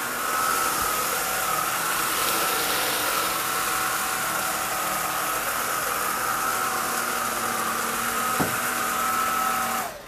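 Eureka Elevate cordless stick vacuum running on low suction with its brush roll on high, passing over carpet strewn with cat litter: a steady motor whine over a rush of air. It cuts off just before the end.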